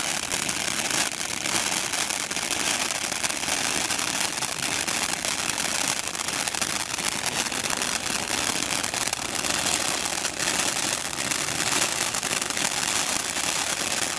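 Nico Class 1 ground fountain burning, a steady hiss of spraying sparks with a light crackle running through it.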